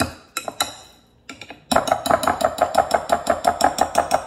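Wire potato masher knocking and clinking against a glass mixing bowl while mashing boiled sweet potato: a few knocks, a short pause, then a fast, even run of clinks, about six a second.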